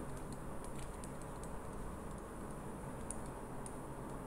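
Faint, irregular light ticks and taps from pen input on a computer as an equation is handwritten stroke by stroke, over a steady low background hum.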